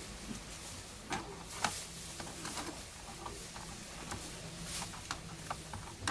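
Plastic snap clips of a laptop's case clicking and scraping as the case is prised apart with a fingernail: irregular sharp clicks, one louder about a second and a half in.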